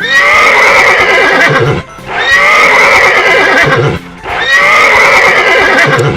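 Horse neighing three times in a row, each whinny about two seconds long with a short pause between.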